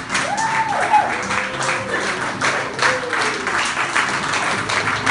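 A room of seated guests clapping steadily, with entrance music playing underneath.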